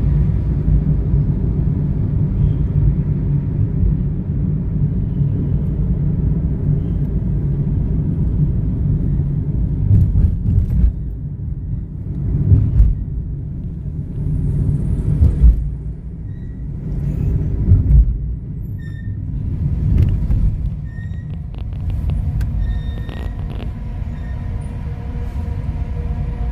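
Low rumble of a moving car heard from inside the cabin, road and engine noise, swelling and easing several times midway.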